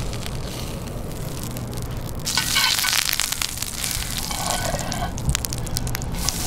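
Butter sizzling and crackling as it melts in hot canola oil in a cast iron pan over a campfire. The crackling grows louder and busier about two seconds in.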